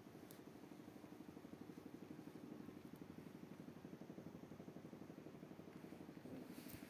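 Kitten purring steadily, a faint, rapid, even rumble.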